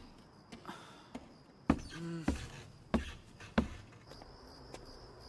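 A few slow, separate footsteps thudding on wooden stairs. Near the end, crickets begin a faint steady chirping.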